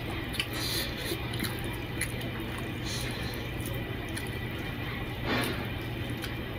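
Fingers squishing and scraping curry-soaked pulao rice on a plate, with short wet eating sounds, over a steady background hum from a ceiling fan.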